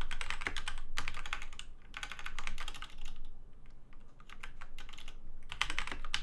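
Typing on a DMK02 mechanical keyboard with off-brand red (linear) switches: quick runs of key clacks in three bursts, with a few scattered keystrokes between them.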